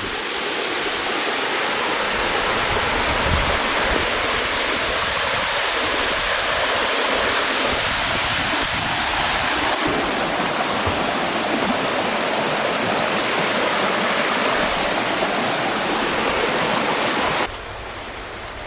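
Water rushing over the top of a waterfall: a steady, loud rush of falling water. It drops off sharply about a second before the end.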